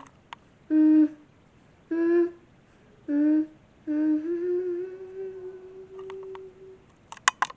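A voice humming a wordless tune: three short notes, then one long held note that rises slightly and fades out. A few sharp clicks near the end.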